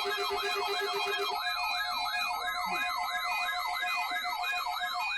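Electronic siren yelping, its pitch sweeping up and down about three times a second. A lower, rapidly pulsing tone runs underneath and stops about a second and a half in.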